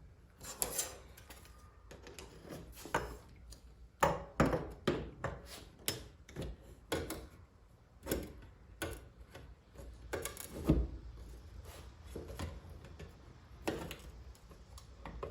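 Irregular clicks, knocks and rubbing as a truck side mirror and its mounting hardware are handled and worked into place, with the sharpest knocks about 4 s in and again near the 11-second mark.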